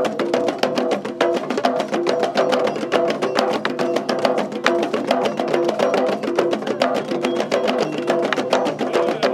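Percussion-driven music with quick, steady hits and a melody of short, stepping notes.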